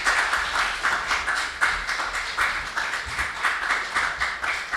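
A small congregation applauding, many hands clapping steadily and easing off slightly toward the end.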